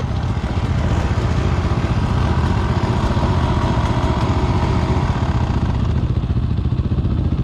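Beta 300RR two-stroke dirt bike engine running steadily while being ridden.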